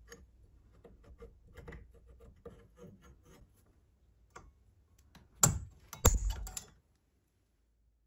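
Faint scratching ticks of a steel caliper jaw scribing a mark on an iron pipe coupling, then about five seconds in two sharp metallic snaps less than a second apart as a center punch marks the drilling spot on the iron.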